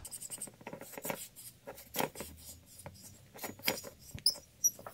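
Decompressor valve being lapped into its seat in a Malossi cylinder head: the valve is turned back and forth with a screwdriver against wet, water-soluble valve-grinding paste, giving irregular gritty scraping and ticking.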